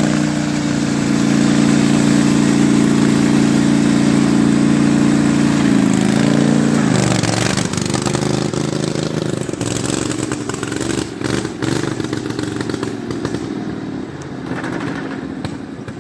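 Small engine of a pulley-swapped riding lawn mower running flat out at a steady high pitch. About six seconds in, its pitch drops, and it grows quieter and more uneven toward the end.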